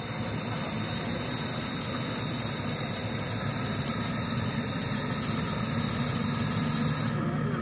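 Radio-controlled Cat 336D scale excavator running with a steady motor hum and hiss as it lifts its loaded bucket and swings toward the dump truck.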